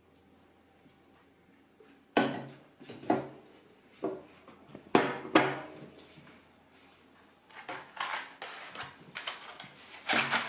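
Dishes and kitchenware being handled: starting about two seconds in, hard items are set down with a handful of sharp knocks, then a quicker run of clinks and clatter near the end.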